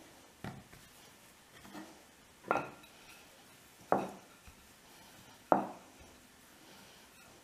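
Kitchen utensils knocking against a wooden pastry board while dough is being rolled out: four sharp knocks, the last three louder and about a second and a half apart, each with a brief ring, as a wooden rolling pin and a metal cookie cutter are picked up and set down.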